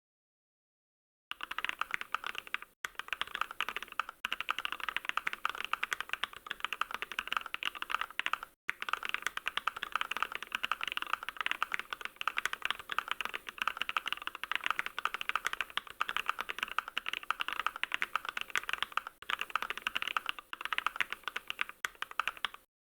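Fast, continuous typing on a computer keyboard: a dense run of keystroke clicks starting about a second in, broken twice by brief pauses.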